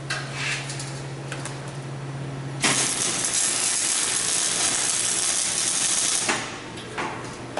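A few metal clicks, then an electric welding arc crackling steadily for about three and a half seconds as steel rebar is welded to a stainless threaded rod, cutting off suddenly. A couple more clicks follow near the end.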